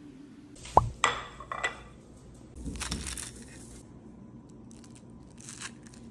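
Metal table knife clinking against a ceramic plate, several sharp clinks in the first two seconds, then scraping as it cuts through pan-fried dumplings. A shorter scrape on the plate comes near the end.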